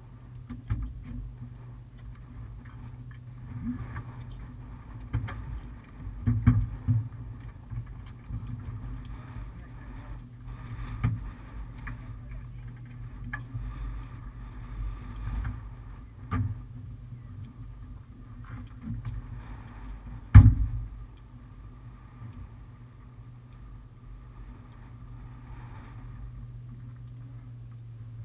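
A steady low hum with irregular knocks and bumps, the loudest a single sharp thump about twenty seconds in.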